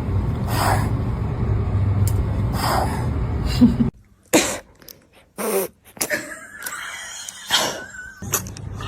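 Kitten sneezing again and again: short, sharp sneezes, two over a steady low hum and then several more in quieter surroundings.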